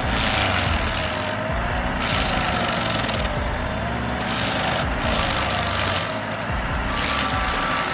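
Bandit 2550T's Kohler engine running under load while its cutter chews into wood in repeated grinding bursts of roughly a second each.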